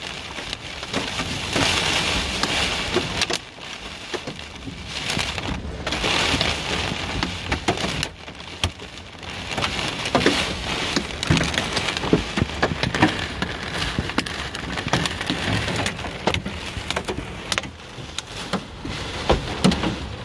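Heavy rain and hailstones hitting a car's roof and windshield, heard from inside the car: a dense rush of rain with many sharp knocks of hail. It grows louder and eases off in waves.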